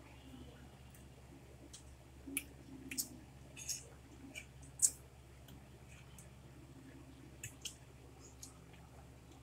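Quiet eating sounds: scattered small clicks of spoons and forks against plates and wet mouth sounds of chewing, with one sharper click about five seconds in.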